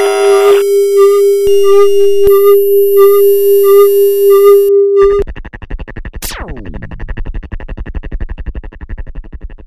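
Electronic synthesizer music for a logo reveal: a steady held tone with small chiming notes above it, which stops about five seconds in and gives way to a fast pulsing texture with a quick falling sweep, fading out near the end.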